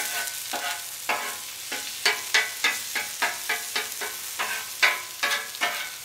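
Metal spatula striking and scraping across a flat-top griddle, about three strokes a second, each with a brief metallic ring. Underneath is the steady sizzle of eggs frying on the hot plate.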